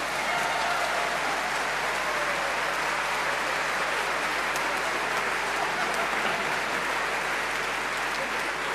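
Audience applauding steadily, a dense even clapping that begins just after the music ends and eases off slightly near the end.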